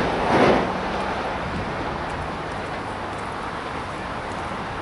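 Electric multiple unit receding along the track: its wheel and running noise peaks once about half a second in, then fades to a steady distant rumble.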